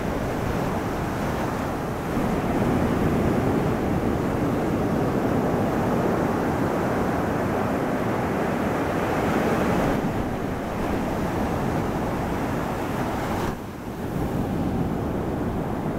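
Strong ocean surf breaking and washing up a sandy beach: a steady, dense rush of waves, with a short dip in level about three-quarters of the way through.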